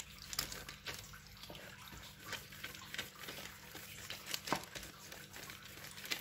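Wooden rolling pin rolling cookie dough flat under a clear plastic sheet on a silicone baking mat: faint, irregular crinkles and small clicks of the plastic, with a slightly louder click about four and a half seconds in.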